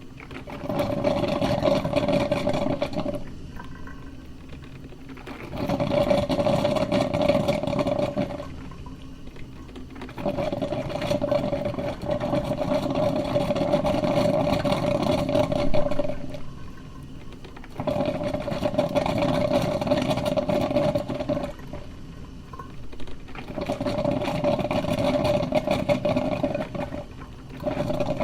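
Coffee maker running in repeated bursts of several seconds, each a noisy gurgling rush with a steady hum through it, broken by short quieter pauses about five times.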